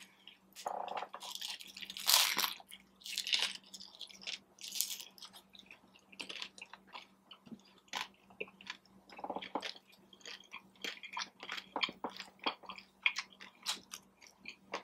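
Crunching bites and chewing of hard-shell tacos and Doritos nachos. A few loud crunches come in the first few seconds, the loudest about two seconds in, then steady chewing with many small crackles.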